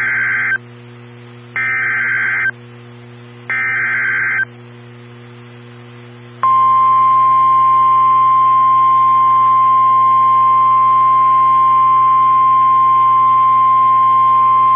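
Emergency Alert System SAME header: three short bursts of data screech, about a second each, with radio hiss between them. About two seconds later the National Weather Service warning alarm tone starts, one steady high tone that announces a severe thunderstorm warning. A low hum runs underneath.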